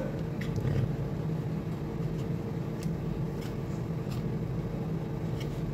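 Light clicks and scrapes of a plastic condensate-pump housing and its power cord being handled and pushed into place, over a steady low machine hum.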